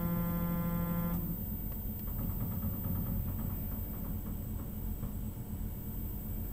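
Tormach PCNC 1100 mill's stepper-driven table jogging: a steady pitched whine for about the first second, then faint rapid ticking as the axis is inched along in fine steps, over a constant low machine hum.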